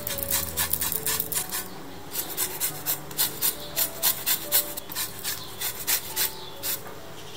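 Lemon rind being grated on a fine rasp zester over a glass bowl, a quick run of rasping strokes, about three a second.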